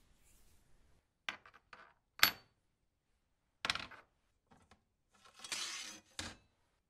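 Metal parts (an aluminium square bar, a ball bearing and a long aluminium rod) being set down on a tabletop: a run of separate clinks and knocks, the sharpest with a short metallic ring about two seconds in. Near the end there is a scrape of about a second as the rod is laid in place, ending in a knock.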